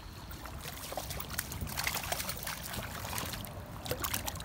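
A hooked trout thrashing at the surface of shallow lake water as it is brought in to be landed by hand: a quick run of small, sharp splashes, with a short pause before a last flurry near the end.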